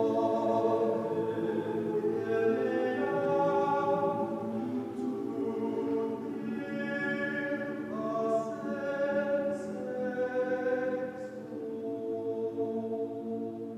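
Mixed choir of men and women singing slow, sustained chords, the sound growing quieter toward the end.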